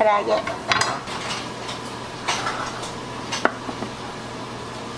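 Dishes and utensils being handled: a few sharp clinks and knocks, the loudest about three and a half seconds in, over a steady low hum.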